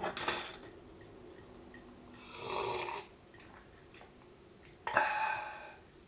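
A man's breathy noises: a short one about halfway through, and a louder one that starts suddenly near the end and fades away, with a few soft clicks at the very start.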